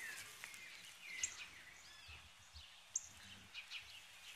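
Faint outdoor background with small birds chirping now and then: a few short, high chirps and calls over quiet noise.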